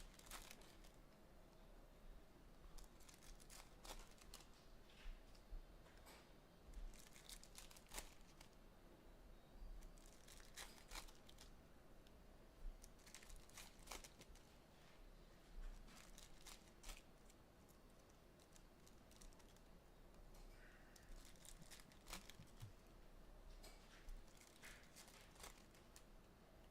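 Faint crinkling and tearing of trading-card pack wrappers, with scattered short crackles and clicks throughout.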